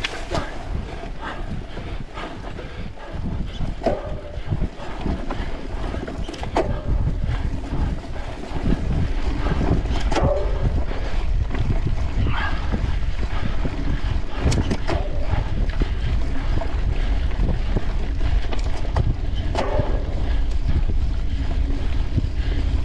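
Wind buffeting a mountain bike's on-board camera microphone while riding, getting louder about a third of the way in, with scattered knocks and rattles from the bike over the trail.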